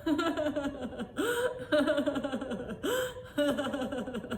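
A woman laughing on purpose as a laughter yoga exercise. She laughs in three quick runs of 'ha-ha-ha' that fall in pitch, each broken off by a sharp gasping in-breath.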